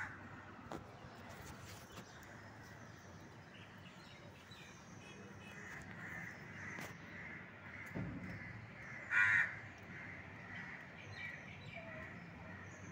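A crow cawing: one loud call about nine seconds in, with fainter bird calls around it. A few light clicks are heard as well.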